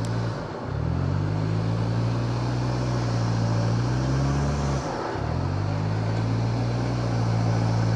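A vehicle engine running steadily. Its pitch sags and climbs back up twice, about half a second in and again about five seconds in.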